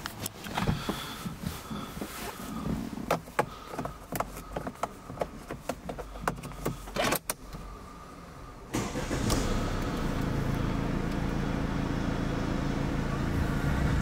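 Clicks and knocks from the controls inside a Mercedes-Benz car being handled. About nine seconds in, a steady running noise sets in as the car is switched on.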